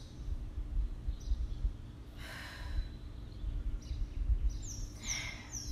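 A woman exhaling hard twice, about two seconds in and near the end, while working through leg lifts, over a steady low rumble. A few faint high chirps come near the end.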